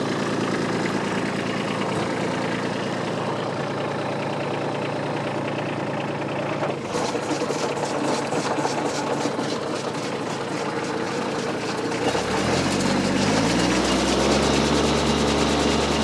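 Kubota B2601 compact tractor's three-cylinder diesel idling steadily. About twelve seconds in, the PTO engages the Woodland Mills WC68 chipper: the engine note dips, then climbs over a couple of seconds to a steady, higher note as the engine is brought up to 540 RPM PTO speed and the chipper spins up.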